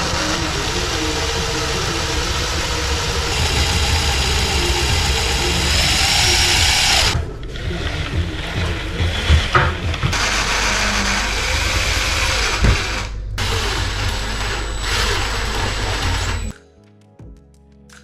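An electric power tool's motor running loudly, stopping briefly twice, with background music underneath; the motor cuts off near the end, leaving the music.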